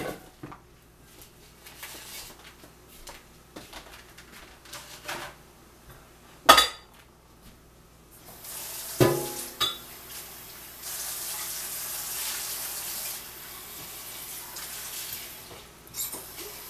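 Metal cookware clanking on the stovetop: a few sharp knocks and clinks, then a steady hiss from about halfway through.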